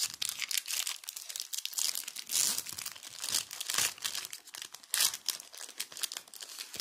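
Foil wrapper of a Match Attax trading-card booster pack being torn open and crinkled by hand: a dense, continuous crackle with tearing, louder in several spurts.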